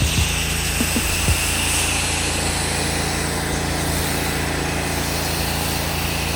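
Pressure washer engine running steadily under the hiss of a high-pressure water spray rinsing a masonry sign.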